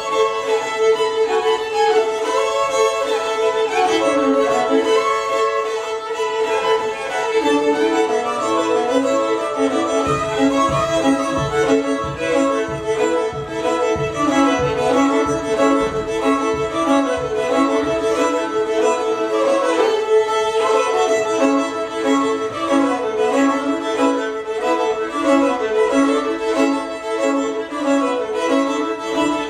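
Fiddle tune played live, a steady drone note held under the moving melody. A low, regular beat joins about ten seconds in.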